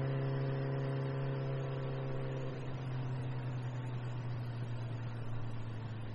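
Motorcycle engine running steadily while the bike is ridden, a constant low hum. About two and a half seconds in, its higher overtones drop away and the note thins.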